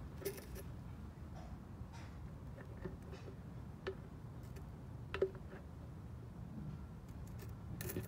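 Faint scattered clicks and taps of a plastic oil bottle's spout knocking in the oil fill tube of a small Briggs & Stratton engine while fresh oil is poured into the crankcase, over a low steady rumble.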